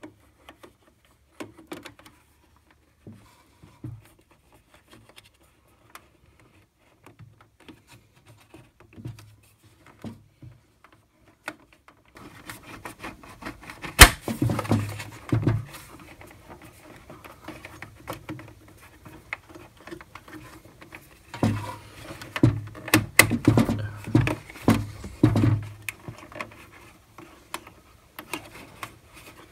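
Hands handling wiring and fitting a plastic cable-trunking cover inside a metal electrical enclosure: scattered light clicks and rustles, then busier handling with one sharp click about halfway through and a cluster of knocks and rubbing in the second half.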